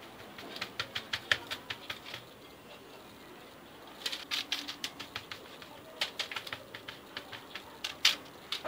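Hands patting and pressing crumbly sablé biscuit dough flat onto parchment paper on a baking tray: quick runs of light taps, with a pause of about two seconds partway through.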